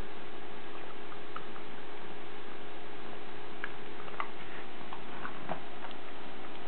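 Welsh corgi chewing a snack: scattered small irregular clicks and crunches, thickest near the middle and end, over a steady hum.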